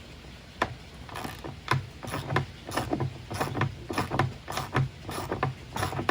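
Hand ratchet wrench driving half-inch lag screws into 4x4 timber, clicking over and over with each swing. The clicks are sparse at first and come about two to three a second from about a second in.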